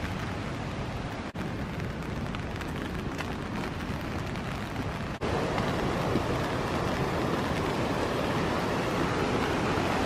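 Steady hiss of rain and flowing water, broken twice by brief dropouts. About five seconds in it turns louder and fuller as the rushing water of river rapids takes over.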